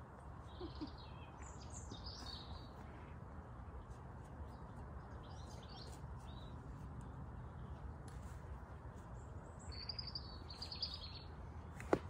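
Garden birds chirping in three short spells of song over a low steady background rumble, with a single sharp knock near the end.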